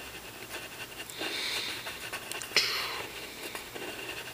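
Pencil shading strokes scratching on paper, with breathing close to the microphone and one sharp, sudden noise about two and a half seconds in.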